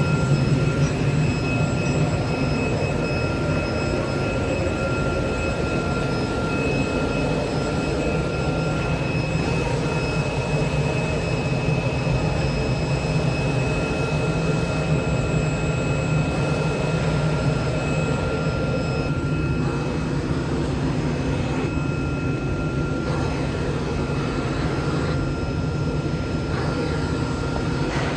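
CNC oscillating-knife cutting machine running as it slots and cuts a polyester-fibre board: a steady, loud mechanical drone with a thin high whine that drops out for a while midway and returns near the end.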